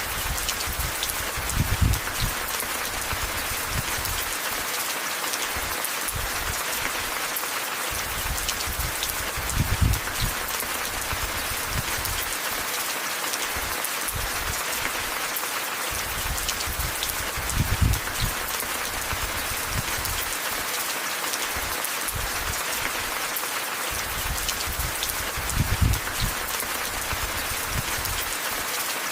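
Steady rain falling, an even hiss, with a brief low rumble that swells and fades about every eight seconds.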